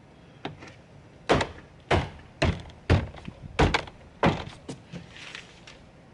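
Car door trim panel being knocked onto the inner door to seat its plastic retaining clips: six loud thumps about half a second apart, with a few lighter knocks before and after.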